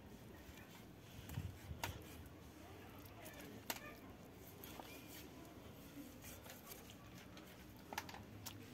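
Kitchen knife cutting through a raw whole chicken at a joint, faint, with a few sharp clicks about two seconds in, near four seconds and about eight seconds in.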